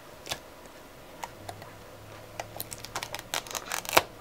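Aluminium foil being handled and pressed over the edge of a panel, crinkling in a series of short sharp crackles. They are sparse at first, come thick and fast in the second half, and the loudest comes near the end.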